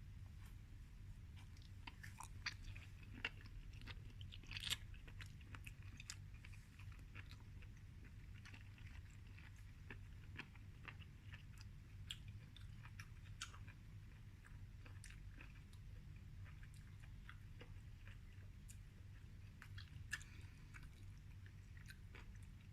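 Faint, irregular chewing and biting of soy-sauce-grilled king oyster mushroom, with small soft clicks and crackles over a low steady hum. A few slightly louder bites come in the first five seconds.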